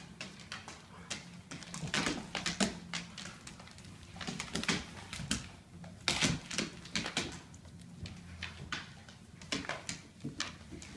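Dogs' claws clicking and scrabbling on a hardwood floor as two dogs play-wrestle, in quick irregular flurries of taps.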